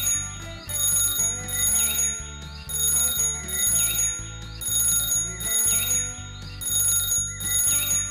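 Background music: a looping track with bright chiming tones over a stepping bass line, repeating about every two seconds.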